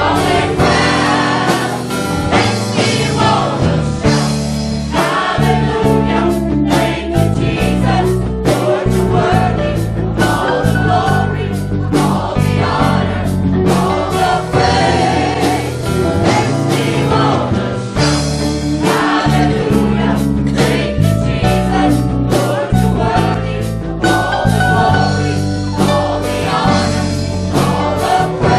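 Live gospel worship music: a choir singing with a full band, with a steady drum beat and bass.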